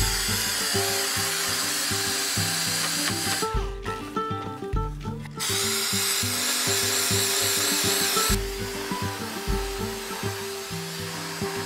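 Air-powered random orbital sander running against a wooden board, a steady hiss, in two runs: the first stops about three and a half seconds in, the second runs from about five and a half to eight seconds. Acoustic guitar music plays underneath.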